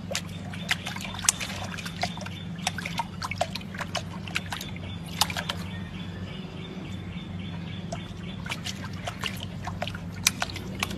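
Water in a stone basin being pawed and splashed by a puppy: irregular small splashes and drips over a steady low hum.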